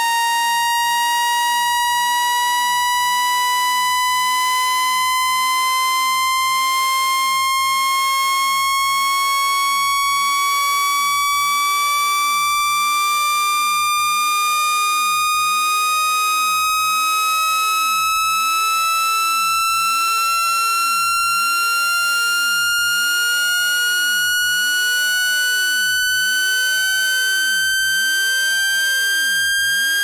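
Synthetic water-eject cleaning tone for a phone speaker and charging port: a loud, steady, buzzy electronic tone that glides slowly and evenly upward in pitch. It is a frequency sweep meant to vibrate water droplets out of the phone.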